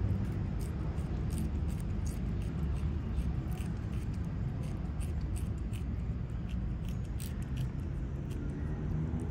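A domestic cat licking a squeeze-tube cat treat: short, wet tongue clicks at an irregular pace of about two to three a second, over a steady low rumble.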